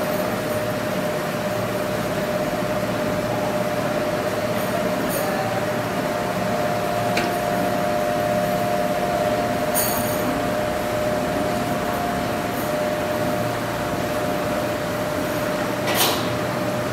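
Steady machine noise, a continuous hum with a steady whine, broken by a few light metallic clicks.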